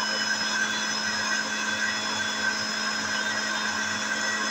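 Electric mixer-grinder motor running steadily with a constant hum, its jar loaded with chopped onion for grinding.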